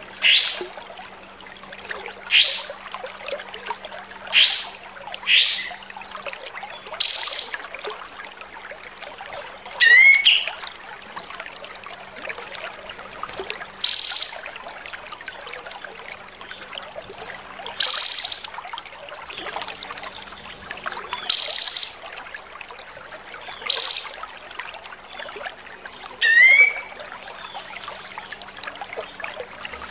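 Olive-winged bulbul (kapas tembak) singing its harsh, rough 'masteran' call: short, loud, sweeping high-pitched notes repeated every few seconds, with a rising stuttered phrase twice.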